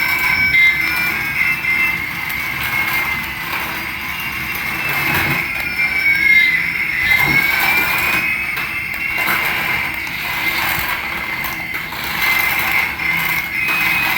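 High electric whine from a battery-powered toy, holding steady tones, with two pitches gliding in opposite directions and crossing about six seconds in.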